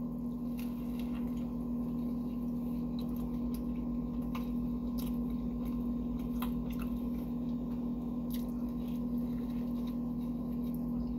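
Close-miked biting and chewing of a McDonald's Carolina BBQ Quarter Pounder: soft, wet mouth clicks scattered through, over a steady low background hum.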